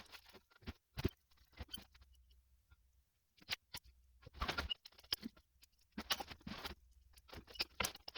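Hand tools and small metal parts clicking and rattling in short, irregular bursts, with a pause a few seconds in.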